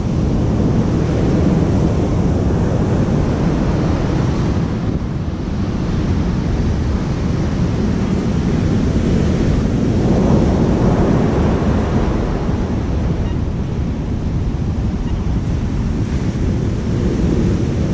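Wind buffeting the microphone over the steady wash of heavy surf, swelling a little about ten seconds in.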